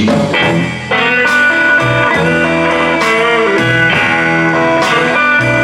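Electric guitar playing blues licks through a Quilter MicroPro Mach 11 amp, in an instrumental break between sung lines, with low notes recurring about every two seconds underneath.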